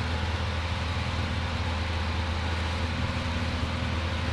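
Steady drone of a Cessna 182P Skylane's P.Ponk-upgraded 270-horsepower engine and propeller in cruise flight, heard inside the cockpit, with a constant low hum under an even rushing noise.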